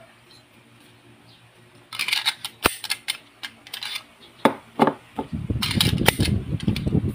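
Metallic clicks and clatter of a Rock Island Armory 1911 pistol being handled as a magazine is pushed into the frame's magazine well, with one sharp click about two and a half seconds in and two more near the middle. A low rustling handling rumble with further clicks follows in the second half.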